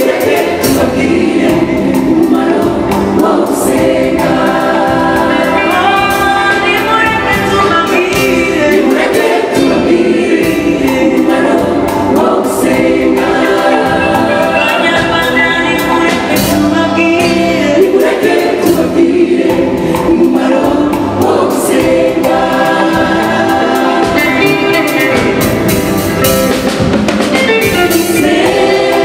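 A mixed choir of men and women singing a gospel worship song into microphones, over a steady beat.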